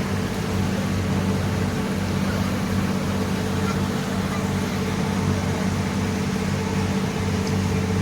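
An engine running steadily: a low, even hum that neither rises nor falls.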